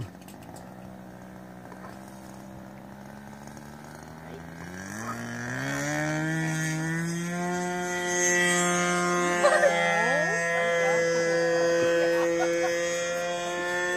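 Radio-controlled model 'flying lawnmower': its motor and propeller run at a low steady hum, then throttle up over about three seconds, the pitch rising as it takes off. It then holds a steady, loud, high-pitched run while it climbs away.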